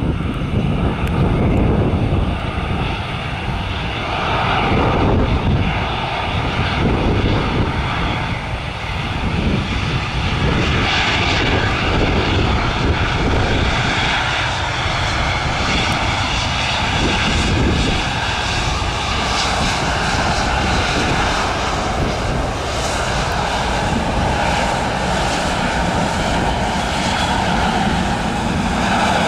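The CFM56 jet engines of an arriving Airbus A320-216 airliner, running loud and steady. A whine of several held tones sits over a broad rushing roar.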